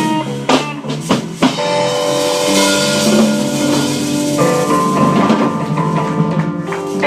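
Live blues band playing without vocals: a run of drum kit hits in the first second and a half, then held, ringing chords under cymbal wash.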